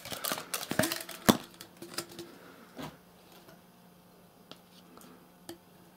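Plastic clicks and knocks from a plastic sports bottle being handled and its valve cap unscrewed over a plastic sheet, busiest in the first three seconds, then a few faint taps. A faint steady hum runs underneath.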